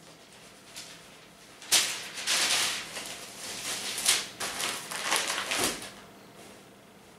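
A newspaper rustling and crackling as it is grabbed and crumpled: a run of sharp crinkles starting about two seconds in and lasting about four seconds.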